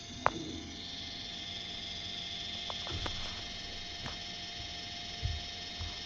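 Voltas air conditioner's defective blower motor running, a steady high whir with a sharp click about a quarter second in and a few lighter clicks later.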